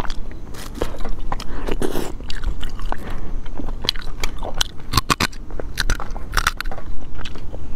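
Close-miked eating sounds: lip smacks, sucking and chewing as meat is pulled from spicy braised shellfish by hand, with many sharp, irregular clicks.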